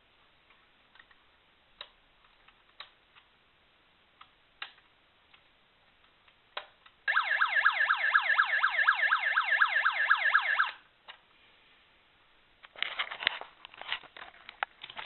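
Small electronic police siren from a 1/18-scale model police Range Rover's sound unit, a fast repeating sweep lasting about three and a half seconds. Light clicks come before it, and handling knocks and rustling follow near the end.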